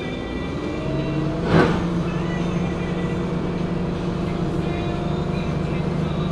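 Heuliez GX 127 city bus's six-cylinder Iveco Tector 6 diesel engine running under way, heard from inside the cabin. The engine note rises for about a second and a half, a brief loud thump follows, and the bus then runs on with a steady drone.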